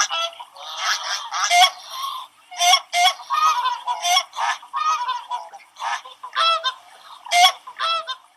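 A flock of swans calling, with many short calls overlapping in quick succession.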